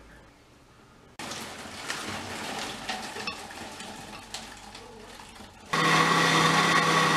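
Something is poured into a countertop blender jar holding greens and banana, with scattered clicks. Then, about five and a half seconds in, the blender motor starts and runs loud and steady with a high whine for about a second and a half before stopping.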